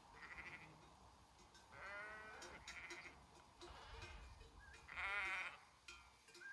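Sheep bleating: about four wavering bleats in turn, the loudest about five seconds in.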